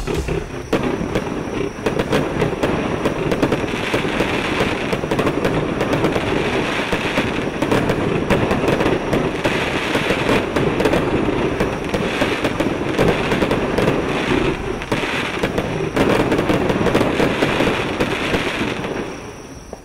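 Consumer 24-shot aerial fireworks cakes firing together: a dense, continuous run of overlapping shots, pops and bursts. It fades out near the end.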